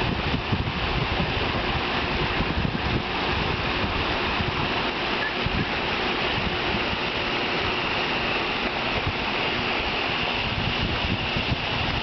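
Steady splashing and churning of pond water as a crowd of koi jostle at the surface, with wind buffeting the microphone.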